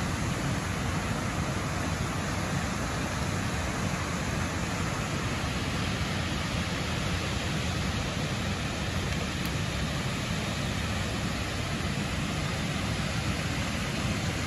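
A waterfall, its falling water making a steady, even rushing noise that does not change.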